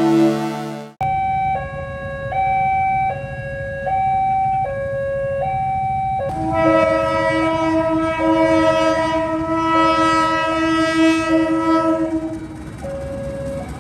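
Railway level-crossing warning alarm sounding a two-tone high-low signal, each tone held about three-quarters of a second. From about six seconds in, a train horn sounds one long steady blast of about six seconds over it as the train approaches.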